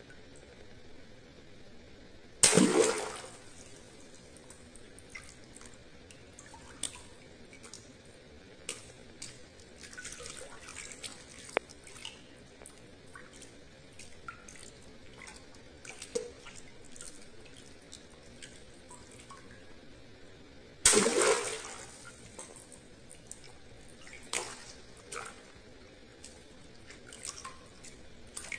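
Two water balloons bursting, one about two seconds in and another about twenty-one seconds in: each a sharp pop followed by a short splash of water. Scattered drips and small splashes between.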